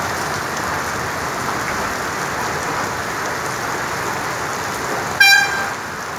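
Heavy rain pouring onto a flooded street, a steady hiss. About five seconds in, a vehicle horn gives one short toot.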